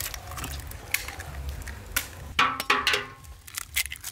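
Several people cracking eggs by hand over a large metal bowl: sharp eggshell cracks and clicks of shell on the metal come in quick, irregular succession.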